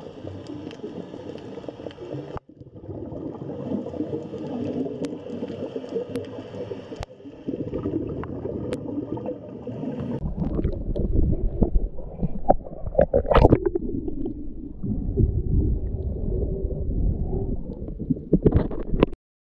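Underwater water sound picked up by a camera: gurgling, bubbling water with a few sharp clicks. About halfway through it turns to a louder low rumble of moving shallow water, then cuts off abruptly just before the end.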